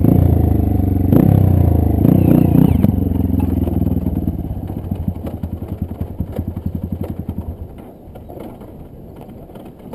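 Dirt bike engine revving in short blips, then its firing beat slows and fades, dying away about three-quarters of the way through.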